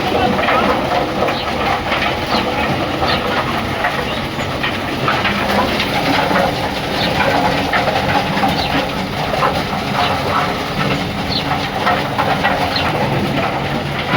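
A machine running steadily, with a noisy hiss and sharp clicks and rattles every second or so.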